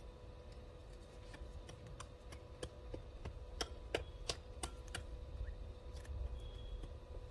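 A dozen or so irregular sharp clicks and taps over a low rumble, the loudest about four seconds in.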